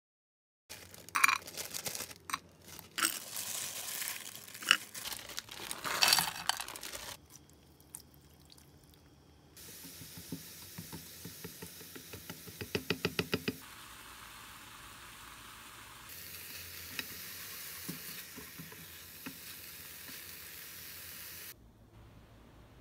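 Kitchen cooking sounds in short cuts: sharp knocks and clatter, then diced onion, carrot and bell pepper sizzling in an oiled frying pan as they are stirred, with a quick run of taps partway through. The sizzle turns into a steady, louder hiss in the later part and cuts off suddenly near the end.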